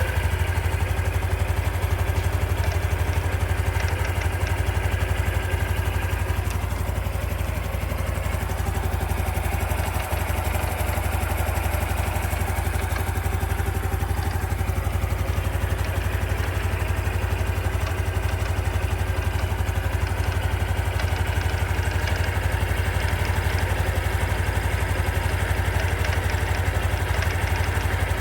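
Honda Super Cub C125's air-cooled single-cylinder engine idling steadily with a rapid 'katakata' rattle, the abnormal noise the owner hears whenever the engine has not just been ridden hot.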